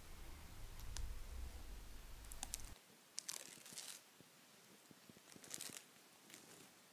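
Faint rustling and crinkling of red double-sided adhesive tape being wrapped and pressed around a wire lampshade ring, with a few light ticks.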